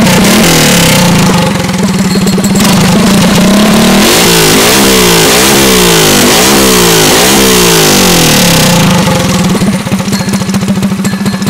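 Single-cylinder kart engine on methanol through an M5 carburetor, revved by hand in about five quick blips that rise and fall in pitch, then settling back to a steady idle near the end. The carburetor is set rich on the low side and lean on the high side.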